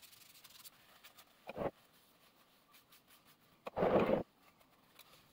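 Bench vice being handled: two short scraping sounds. The louder one comes about four seconds in, as the steel tommy bar is slid through the vice's screw.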